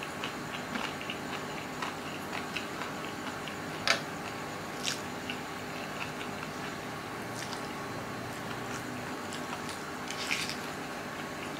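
A person eating Indomie instant noodles close to the microphone: chewing and slurping, with many small wet clicks and a few louder, sharper sounds near the middle and near the end.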